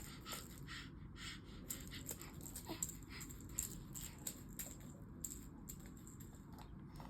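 Faint, irregular crackling and rustling, a few short crackles each second, over a low steady room hum.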